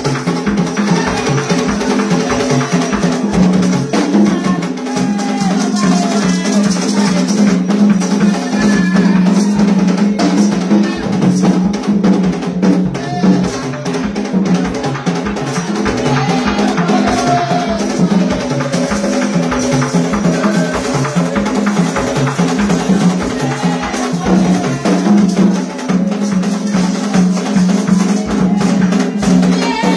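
Haitian Vodou drum ensemble playing live: several hand drums keep up a dense, steady, driving rhythm, with sharper wood-block-like strokes on top.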